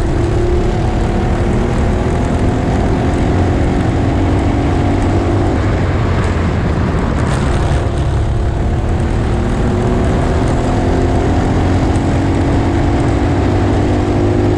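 Honda engine of a cadet racing kart running hard. Its pitch climbs steadily as it accelerates, drops sharply about five to six seconds in and again around eleven seconds in as the throttle comes off, then climbs again. A heavy low rumble runs underneath.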